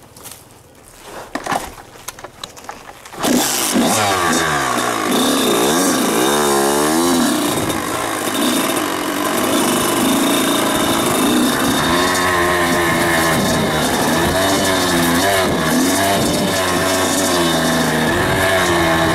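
Small Kawasaki KX two-stroke dirt-bike engine that comes in suddenly about three seconds in. It revs up and down, then keeps running as the throttle is opened and eased.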